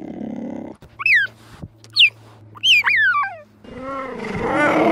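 Cheetah chirping: about four short, high calls, each falling sharply in pitch, then from about three and a half seconds in a lower, drawn-out call that rises and falls.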